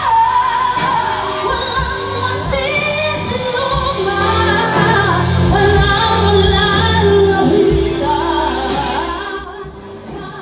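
Live band playing: singing over electric guitar and bass guitar, with a steady low bass line. The music falls away briefly near the end.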